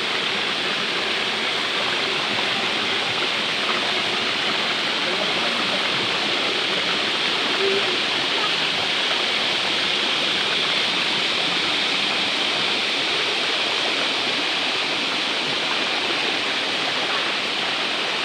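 Shallow river water rushing steadily over a rock ledge, a constant even roar of flowing water.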